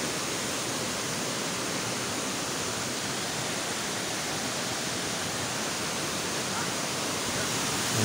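Steady rush of a waterfall and its rocky stream, an even roar of falling and flowing water.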